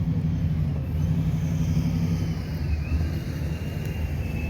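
A vehicle engine running close by: a steady low rumble with a faint high whine gliding above it.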